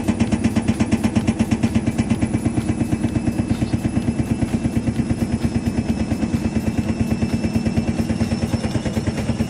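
IFB front-load washing machine drum spinning with a rapid, steady knocking, about ten knocks a second, over the hum and whine of the motor. This 'khad-khad' noise in spin is the sign of a worn drum bearing or a corroded spider.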